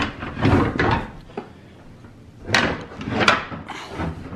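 Elk shed antlers knocking and scraping against one another as one antler is pulled free of a stacked pile: a cluster of knocks in the first second, then two louder clatters a little past halfway.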